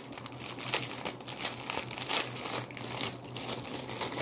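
Thin clear plastic packaging crinkling irregularly as it is handled and pulled open.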